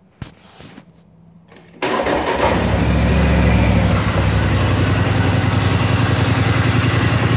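A 2016 Polaris Scrambler XP 1000 ATV's parallel-twin engine being started: a click and a brief crank, then it catches about two seconds in and settles into a steady idle.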